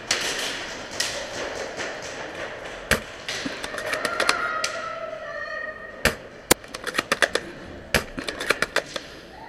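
Airsoft gunfight noise: a scatter of sharp cracks and taps from airsoft guns firing and BBs striking surfaces, coming thick and fast in the last three seconds.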